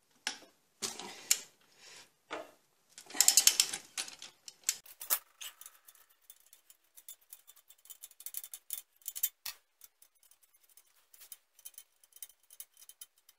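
Socket ratchet clicking as it backs out a hub bolt on a Dana 30 front axle, with a fast run of clicks about three seconds in. After that, only faint scattered metal ticks.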